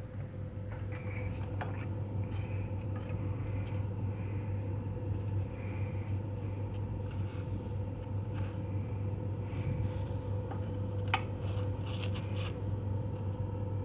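Steady low hum of a kitchen appliance, with a few faint clicks and light clinks of pans and utensils.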